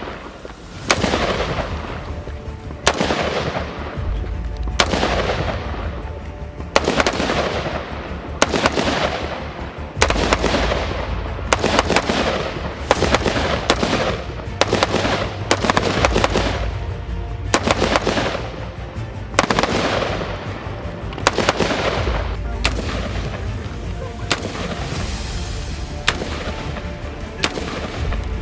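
Colt M4 carbine firing 5.56x45mm NATO rounds in semi-auto, about two dozen single shots, each crack followed by a long echoing tail. The shots come about every two seconds at first, then roughly one a second.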